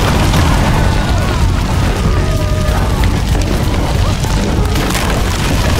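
House fire burning: a steady deep rumble of flames, with scattered crackles over it.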